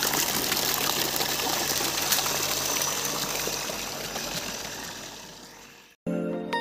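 Water gushing from a well pump's outlet pipe into a plastic crate, with the pump motor humming steadily underneath. The rush fades out near the end and a short musical jingle starts.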